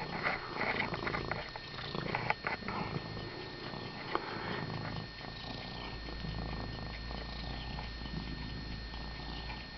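Elderly domestic cat purring steadily while being stroked, with a few faint rustles and clicks of handling in the first few seconds.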